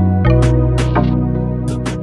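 Background music: plucked, guitar-like notes over a sustained bass line, with a few short sharp percussive hits.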